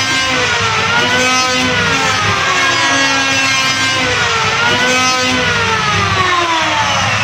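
Electric wood planer running loud and noisy. Its whining motor pitch sinks slowly over a few seconds and springs back up, twice, then sinks again near the end.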